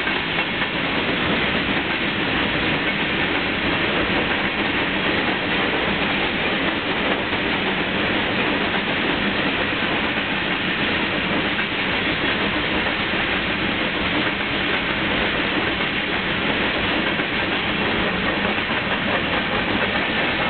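Freight train's covered hopper cars rolling past at close range: steady rolling noise of steel wheels on the rails.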